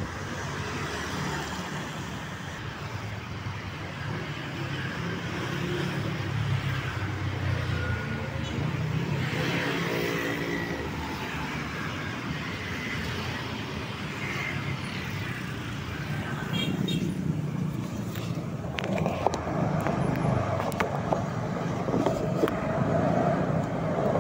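Urban street traffic: the steady low rumble of motor vehicle engines, with motorbikes and cars passing.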